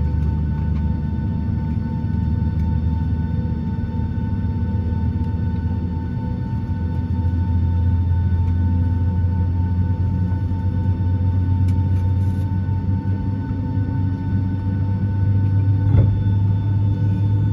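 Steady cabin drone inside a parked Boeing 757-200: a strong low hum with faint thin whining tones over it, from the airliner's air and ventilation systems. A single short click comes near the end.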